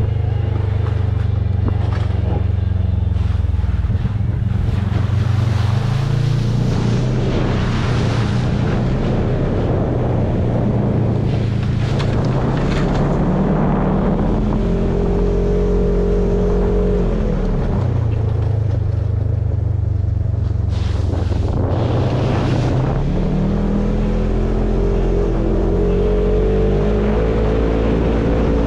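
Polaris RZR side-by-side's engine running under way, its pitch climbing as it speeds up, falling back suddenly a little past the middle, then climbing again near the end.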